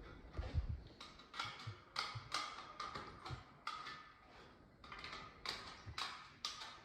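Sharp, irregular wooden knocks and taps, a dozen or so, with a lull around four to five seconds in: timber floorboards being handled and knocked into place.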